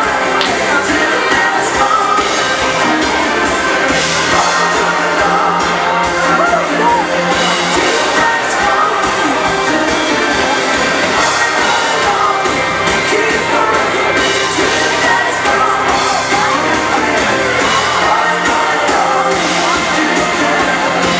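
Live Swedish dansband music with singing: a bugg tune played for couples' swing dancing, running steadily.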